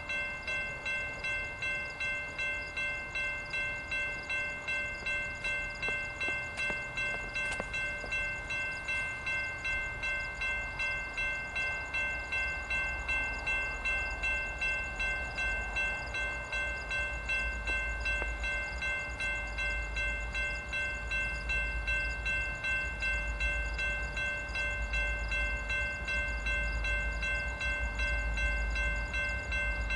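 Railroad warning bell ringing at about two strikes a second, while the low rumble of an approaching train grows louder from about halfway through.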